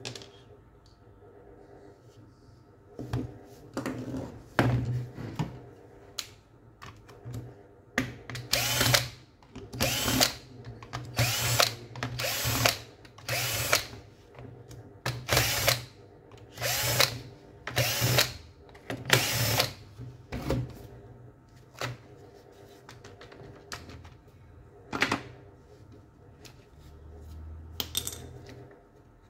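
A cordless drill-driver whirring in about fifteen short bursts at roughly one-second intervals, with one more near the end, as it backs out the screws of a Makita HP347D drill's housing to open it up.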